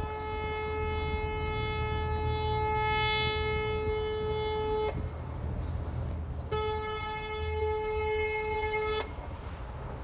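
Water bus horn sounding two long, steady blasts: the first about five seconds, the second about two and a half seconds after a short gap. A low engine rumble runs underneath.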